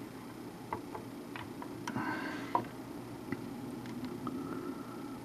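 Faint scattered ticks and light scraping from a desoldering iron's tip working a solder joint on a circuit board, over a low steady hum.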